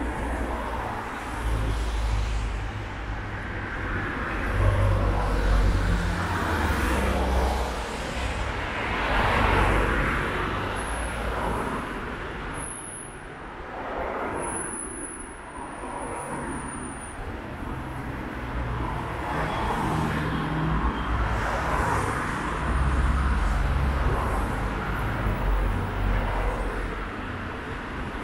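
City street traffic: cars passing one after another, each swell of engine and tyre noise rising and fading away over a few seconds.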